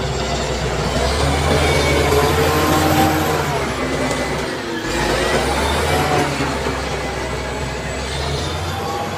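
Caterpillar D7G bulldozer's diesel engine working under load, with a high whine that rises and falls every few seconds as the machine pushes and eases off, and a short drop in engine sound about halfway through.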